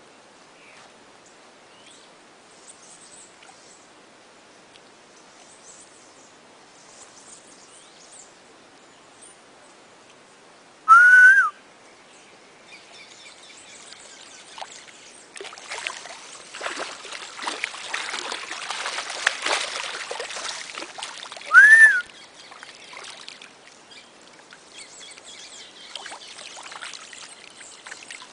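Birds calling: two loud, short, rising whistled calls about ten seconds apart, with faint chirps before them. Between the two calls, several seconds of rough, crackling water-splashing noise.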